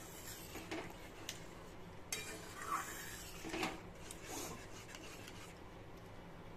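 Flat metal spatula stirring and scraping thick, wet oats khichdi around a metal pan, with several uneven scrapes and a few light knocks against the pan.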